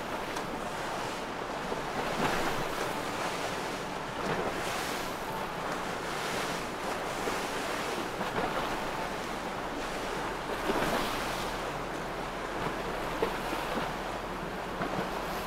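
Wind buffeting the microphone over open water, with waves washing. The noise swells and eases every couple of seconds.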